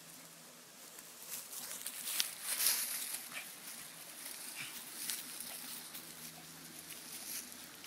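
Dogs digging in the dirt: quick bursts of scratching and scrabbling, busiest and loudest a second or two in, then coming in scattered spurts.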